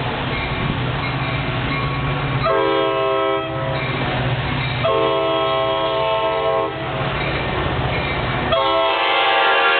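Metra commuter train's multi-note air horn sounding three blasts: a short one about two and a half seconds in, a longer one near the middle, and a third starting near the end that runs on. Between blasts, the low rumble of the moving train.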